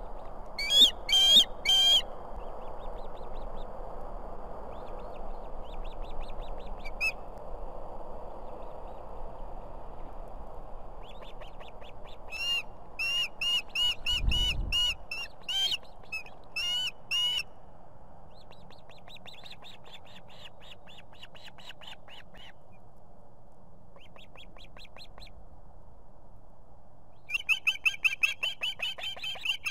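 Ospreys at the nest calling in quick series of sharp, high whistled chirps, in three bursts with fainter chirping between them. A single low thump about halfway through as an adult beats its wings taking off from the nest.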